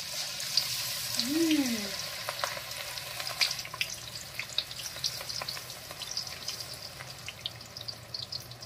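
Onion pakoda batter deep-frying in hot oil in a wide aluminium kadai, sizzling steadily with many small crackling pops as handfuls of batter are dropped in.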